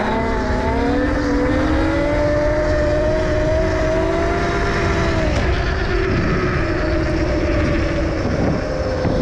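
A 72-volt, 5000-watt electric pit bike's motor whining, its pitch rising as it accelerates for the first four seconds or so, dropping away about five seconds in, then holding steady. A steady low rumble runs underneath.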